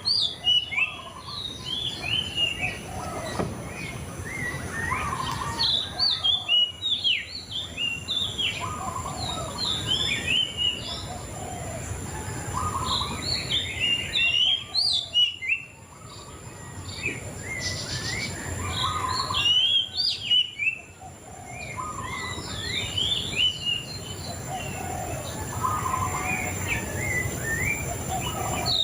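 Murai cacing songbird singing: fast runs of sharp, varied chirps and whistled notes, in bouts broken by brief pauses. A steady high-pitched whine runs underneath.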